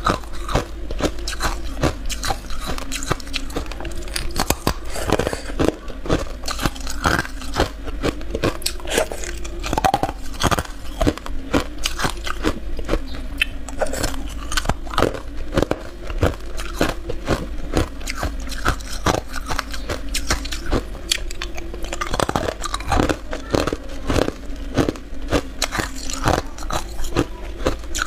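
Clear ice being bitten and crunched between the teeth close to the microphone: a dense, continuous run of sharp crackling crunches.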